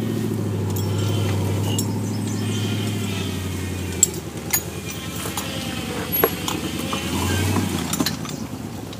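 Jeep's engine running at low revs as it crawls over rock and grass off-road. The engine note eases off a few seconds in and swells again briefly later, with a few sharp knocks along the way.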